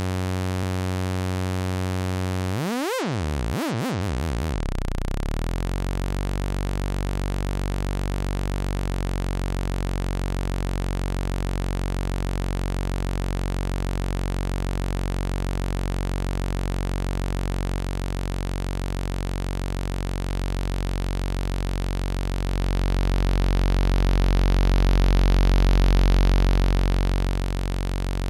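u-he Zebra 2 software synthesizer holding one low sawtooth note, a steady buzzy tone. About three seconds in its harmonics sweep and swirl for a couple of seconds as the waveform is changed, and for a few seconds near the end the note swells louder and fuller as the waveform is reshaped.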